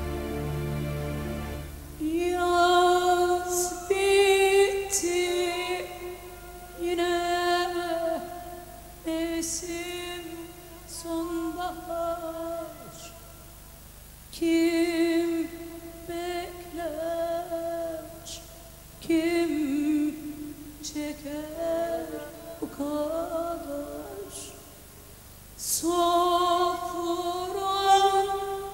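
A woman singing a slow melody in long held phrases with vibrato, separated by short pauses, over faint instrumental backing. The first two seconds are a sustained instrumental chord alone, before her voice comes in.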